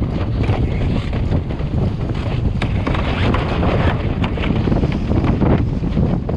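Strong wind buffeting the microphone, mixed with the rush and slap of choppy sea against the hull of a small open sailing boat, a Drascombe Lugger, with many short gusts and splashes throughout.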